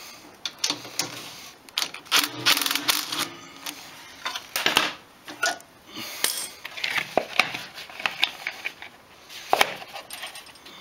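Irregular clicks, taps and rattles of a funnel and its zip tie being handled and wedged into place under the snow blower's oil drain pipe, with a quick run of clicks about two seconds in.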